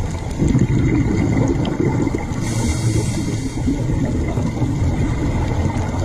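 Underwater rumble of moving water heard through a diving camera, with a short hiss a little before the middle.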